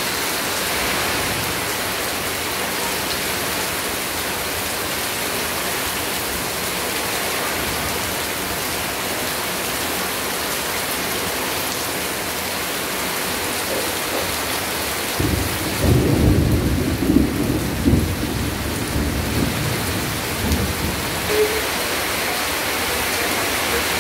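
Heavy rain pouring steadily onto leaves and a wet concrete yard. A low roll of thunder rumbles over it for several seconds past the middle, then dies away.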